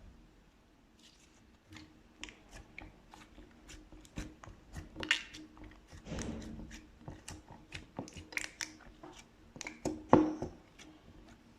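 Slime being worked by hand, giving an irregular run of sticky clicks and small pops. The loudest pop comes about ten seconds in.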